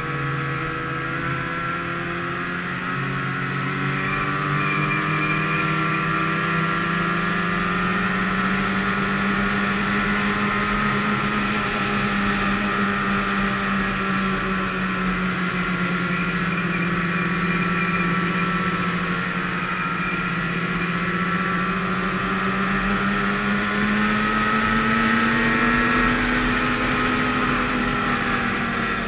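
Snowmobile engine running at trail-cruising speed, close up from the sled itself. Its pitch rises and falls gently with the throttle and climbs highest a few seconds before the end.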